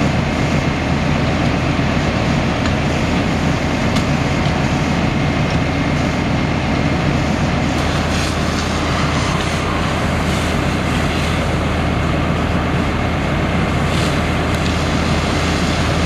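Fire engine's diesel engine running steadily, a constant low drone, driving its pump to supply the charged hose lines. A water stream from a hose adds brief hissing partway through.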